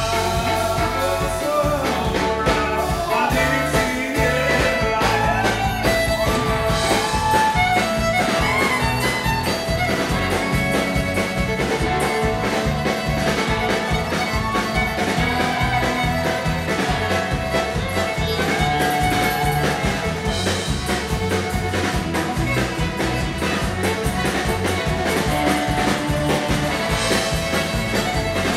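Live country band playing an instrumental break, an acoustic fiddle taking the lead over electric bass guitar and a steady drum beat.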